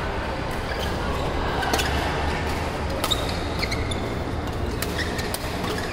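Scattered sharp taps and knocks over a steady low hum.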